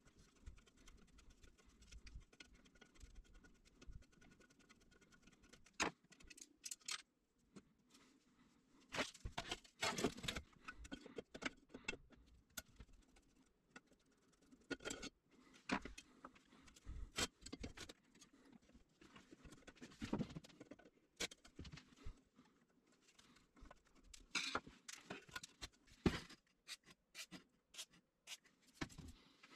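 Hand tools working on a rusty sheet-metal battery-charger case: a screwdriver turning out screws while pliers hold the nuts, giving irregular metallic clicks, taps and short scrapes, with small screws and parts clinking.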